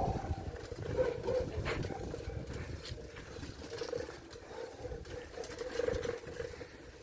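Wind buffeting the microphone of a camera carried on a moving bicycle, a fluttering rumble, with a steady hum that swells now and then.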